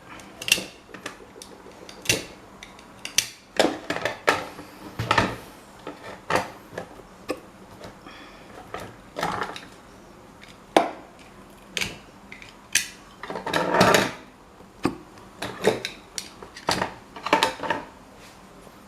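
Hand tools and metal parts of an old electric fan knocking and clinking on a workbench in irregular sharp strikes, with a longer, louder clatter a little past the middle.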